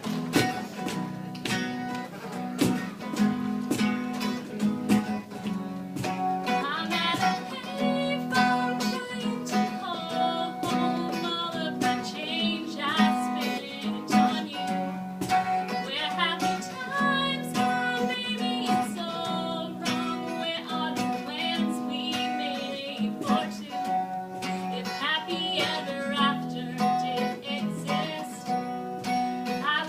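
Music: strummed acoustic guitar under a wavering melody line.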